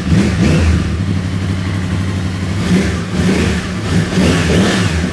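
2009 Yamaha YZF-R1's crossplane inline-four running through Akrapovič dual carbon-fibre slip-on mufflers. The throttle is blipped a few times, so the engine note rises and falls between idle and quick revs. The uneven firing gives a rumble that sounds like a V-twin.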